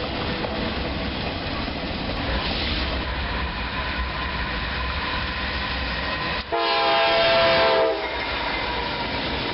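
A train running with a steady rumble, and about six and a half seconds in a train horn sounds one short chord of several notes lasting about a second and a half.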